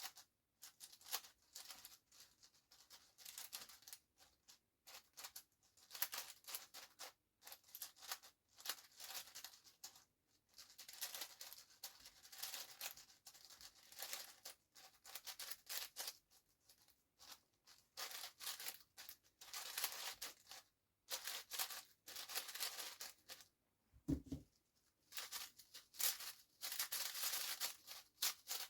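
A magnetic 7x7 speedcube being turned fast by hand: quick runs of plastic clicking and clacking from the layers, broken by short pauses. A brief soft low bump comes near the end.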